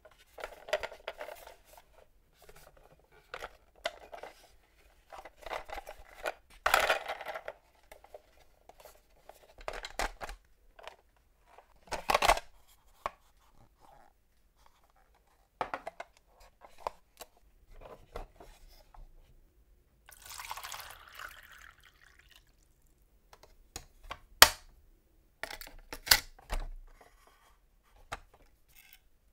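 Plastic parts of a Stunt & Splash Red toy fire truck being handled: scattered clicks, knocks and rubbing as pieces are moved and fitted, with a sharp snap near the end.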